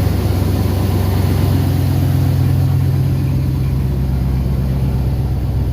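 1988 Ford F-150's 5.0 (302) V8 running at a steady idle, its exhaust passing through only a small resonator with no muffler.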